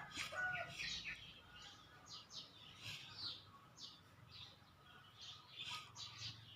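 Small birds chirping: a steady run of short, high chirps, several a second.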